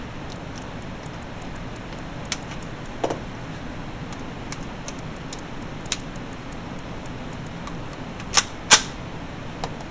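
An H&K MP5 submachine gun being handled between full-auto bursts: a few sharp metallic clicks over a steady background hiss, with two louder snaps close together near the end.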